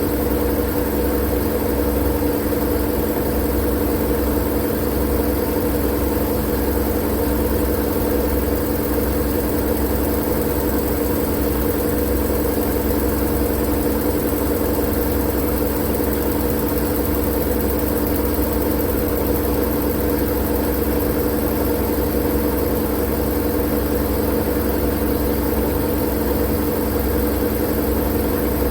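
Steady white-noise drone for sleep: an unchanging low rumble with a steady hum and a hiss on top, no rise or fall.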